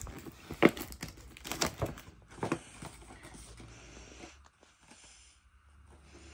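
Thick wrapping paper torn and crinkled by hand while a present is unwrapped: a few sharp rips in the first couple of seconds, then quieter rustling.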